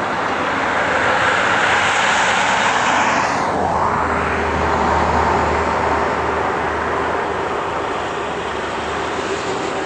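Caterpillar 325D hydraulic excavator's diesel engine working under load as the machine digs, swings and lifts its bucket. The noise swells about a second in, a low steady hum comes in a few seconds later, and it eases off after about six seconds.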